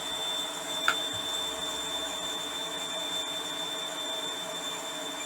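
Steady whir of a small electric blower fan with a thin, high steady whine, and one sharp click about a second in.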